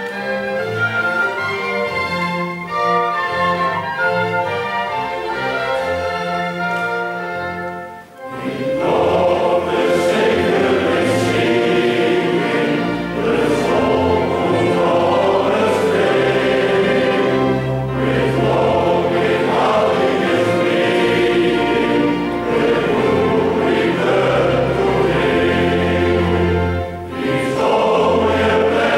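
A small string ensemble of violins, cellos and double bass plays an introduction; about eight seconds in, after a short break, a large male-voice choir comes in singing, with the strings accompanying.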